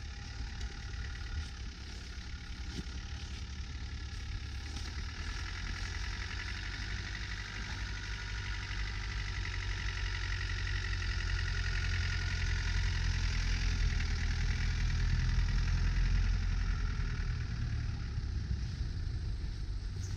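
Land Rover Defender engine running at low revs as the vehicle crawls through deep snow, growing louder as it comes close, loudest about two-thirds of the way in, then easing off.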